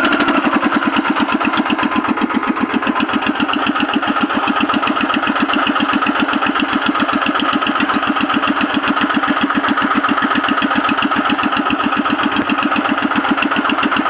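A fishing boat's engine running steadily, with a fast, even beat of firing pulses.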